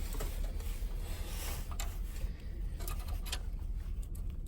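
Hands rustling and scraping over car radio wiring and plastic trim, with a few small clicks as connectors are handled, over a steady low rumble.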